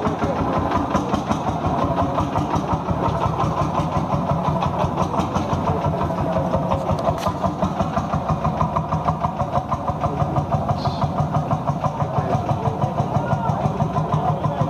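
Vintage tractor engine running steadily at a slow idle, with an even pulsing beat of about five or six pulses a second.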